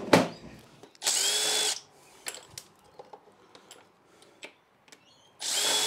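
Cordless drill-driver backing out screws from the old switchboard breaker chassis in two short runs, one about a second in and one near the end, each a steady motor whine. Sharp knock at the start, small clicks and handling knocks between the runs.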